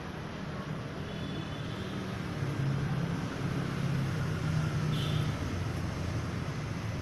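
Steady low outdoor rumble, growing a little louder in the middle, with two brief high chirps about a second in and near five seconds.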